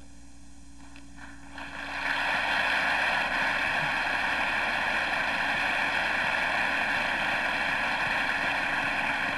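Large audience applauding, building up about a second and a half in and then holding steady.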